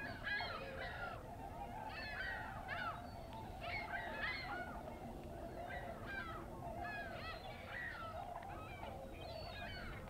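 A large flock of swans calling: many short, overlapping calls that bend in pitch, over a continuous chorus of more distant calls from the rest of the flock.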